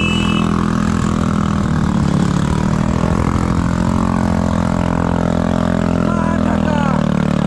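A vehicle engine running steadily at an even pitch.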